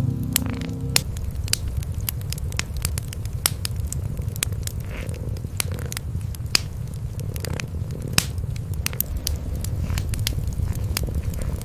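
Wood fire crackling in a fireplace, with frequent sharp pops, over a steady low purr from cats. A brief pitched sound fades out about a second in.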